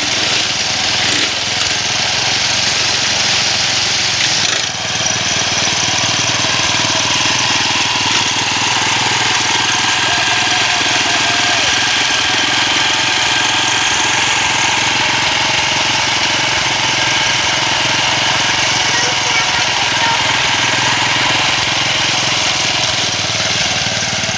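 Small engine of a homemade push grass cutter running steadily, with a brief dip in level about five seconds in.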